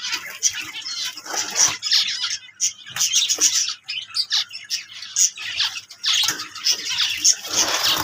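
A colony of caged finches, zebra finches among them, calling together: a busy, overlapping run of short high chirps and squawks that never stops.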